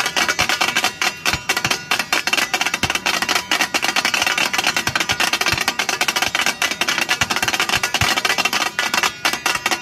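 Several steel spatulas rapidly striking and scraping a large flat tawa griddle, a fast continuous metallic clatter as dal is chopped and mixed on it.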